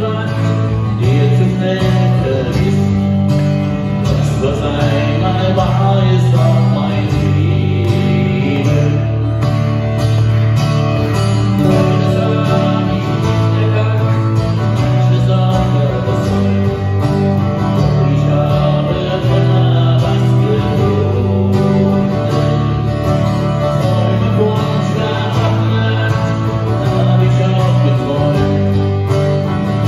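A live acoustic duo: two amplified acoustic guitars playing a steady song while a man sings the lead vocal.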